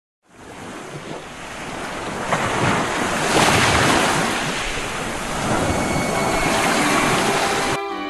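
A rushing noise, like surf, that fades in, swells twice and cuts off suddenly near the end, where music begins.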